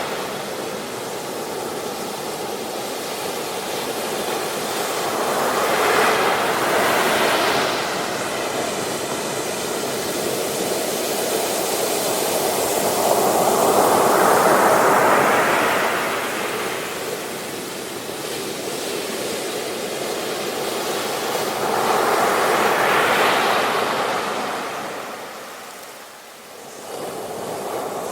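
Ocean waves breaking on a beach: three slow surges of surf swell up and wash back, each about eight seconds apart, with a short lull near the end before the next wave builds.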